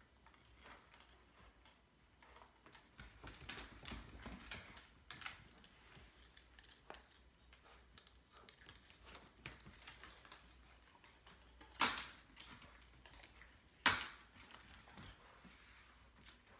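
Small dog moving about on a hardwood floor and mouthing plush toys: faint scattered clicks, taps and rustles of claws, collar and paper price tags, with two sharper clicks about two seconds apart in the second half.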